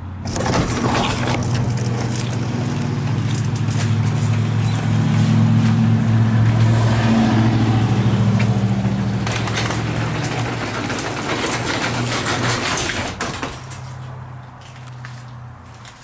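Chamberlain LiftMaster garage door opener running a door: a steady low motor hum with the door rattling along its track for about thirteen seconds. Then the rattle stops, leaving a quieter hum and a few clicks.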